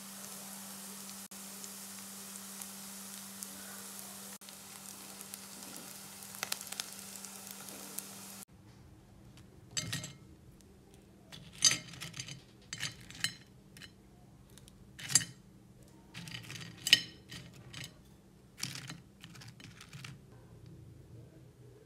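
Long potato fries sizzling in shallow oil in a frying pan, over a steady low hum; the sizzle cuts off about eight seconds in. Then a string of sharp clicks and crisp knocks as wooden chopsticks lift the fried potato sticks and set them on a ceramic plate.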